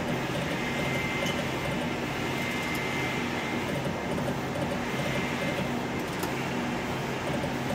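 Slot machine spinning, its faint electronic tones over a steady hum of room machinery.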